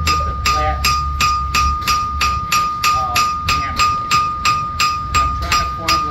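Blacksmith's hand hammer striking work on an anvil in a steady rhythm of about three blows a second, the anvil ringing on between blows.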